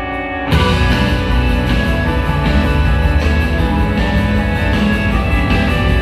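Live rock band in an arena. A held chord fades, then about half a second in the full band comes in loudly with drums, guitars and keyboards and plays on.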